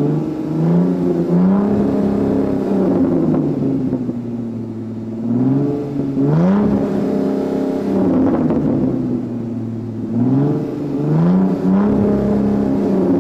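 Supercar engine and exhaust being revved: the pitch climbs quickly and sinks back several times, in clusters near the start, about halfway through and near the end.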